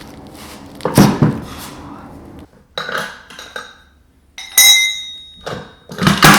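Steel tools and engine parts knocking and clinking together in a series of sharp clanks. A loud double clank comes about a second in, and a clank near the middle rings on with a high metallic tone.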